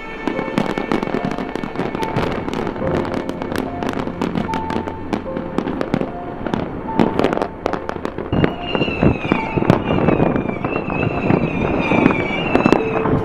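New Year's fireworks going off: a dense run of sharp bangs and crackling shell bursts, many overlapping and coming faster past the middle.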